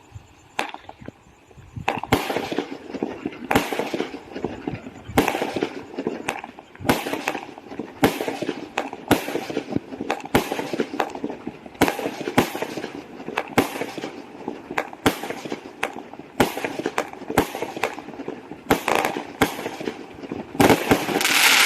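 Fireworks going off: a run of sharp bangs at irregular spacing with crackling between them, starting about two seconds in and building to a louder, denser burst near the end.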